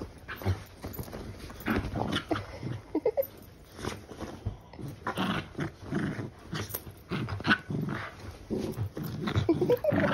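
A dog playing on a bed, making short, irregular noises amid rustling of the bedding.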